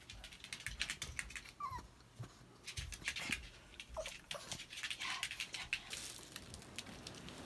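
Kitten giving a few faint, short squeaky cries that slide down in pitch, among many small scattered clicks.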